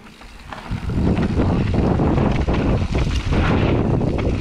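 Wind noise on a GoPro's microphone, together with tyre roar and knocks and rattles from a Canyon Torque full-suspension mountain bike on a rough trail. It swells about a second in as the bike picks up speed.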